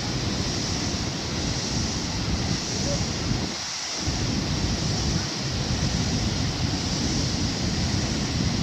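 Steady roar of the Nuranang (Jang) waterfall, with wind buffeting the microphone in gusts that briefly drop away twice.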